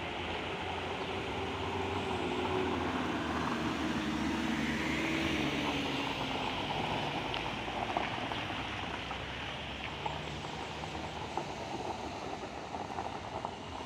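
Heavy truck's diesel engine running hard under load on a steep gravel climb, a steady low rumble with a tone that slides down in pitch over the first few seconds, then scattered clicks and knocks.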